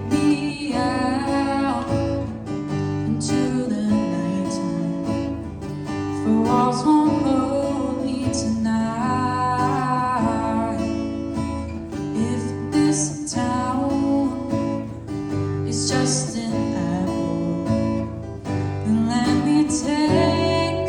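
A female voice singing a slow song over strummed acoustic guitar.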